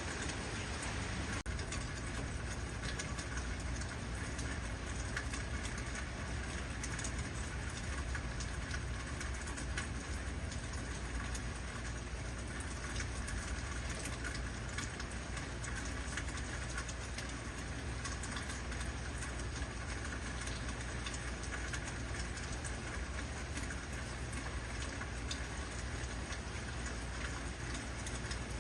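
Heavy rain falling steadily, an even hiss of drops with a constant low rumble underneath. A brief dropout about a second and a half in.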